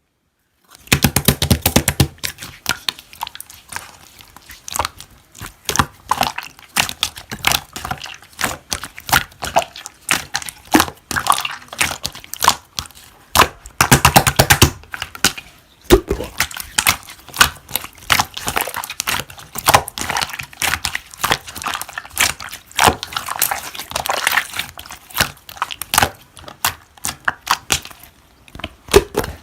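Slime being squished, pressed and stretched by hand, making a dense run of sticky clicks, pops and crackles that starts about a second in.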